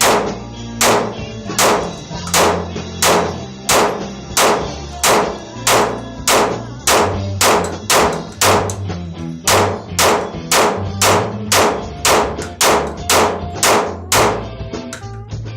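A Glock 26 9mm pistol fired shot after shot, about twenty rounds at roughly one every two-thirds of a second, getting a little quicker and stopping shortly before the end. Background music with a steady bass line plays underneath.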